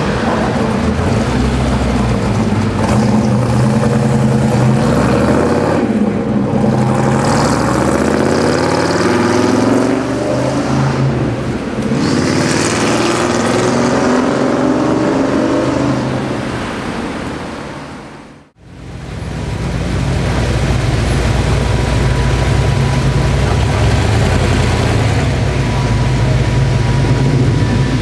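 Car engines in street traffic: engines revving and accelerating, their pitch rising over several stretches, then after a sudden cut about 18 seconds in, a steady low engine note from a car running close by.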